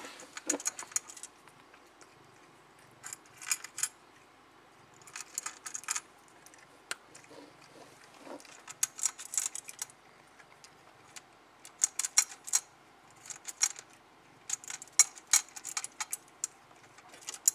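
A cat eating from a bowl: short bursts of sharp crunching and clicking, a second or so each, with pauses between.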